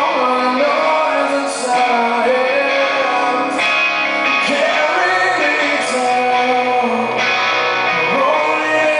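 Live rock song: a male singer holding long sung notes over electric guitar and band, at a steady level.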